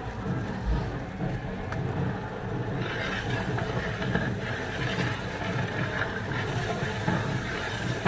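A big pot of thick tomato gravy for shahi paneer simmering over a wood fire, bubbling with an uneven low rumble; a faint hiss joins about three seconds in.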